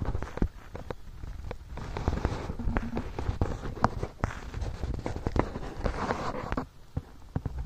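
Footsteps crunching on dry soil and stubble, irregular sharp crackles and clicks, over a rough low rumble of wind buffeting the microphone. The sound drops briefly a little before the end.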